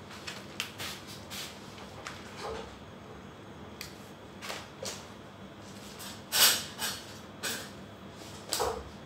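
Small plastic packets and papers being handled: scattered crinkles, rustles and light taps, the loudest about six and a half seconds in.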